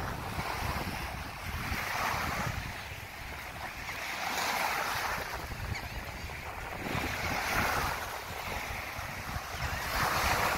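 Small waves washing onto a sandy beach, swelling and fading every two to three seconds, with wind rumbling on the microphone.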